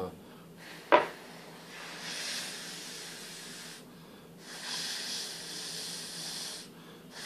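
A sharp click about a second in, then three bursts of hissing blown air, two of about two seconds and a short one near the end: air being blown over a freshly cleaned phone loudspeaker to dry it.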